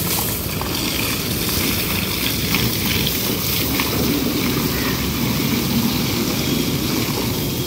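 Water from a garden hose spraying against a car's side panels and wheel, a steady hiss over a constant low rumble.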